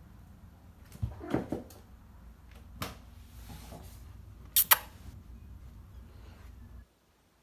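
A few sharp knocks and clicks over faint room noise, the loudest a close pair about four and a half seconds in. The sound cuts off abruptly shortly before the end.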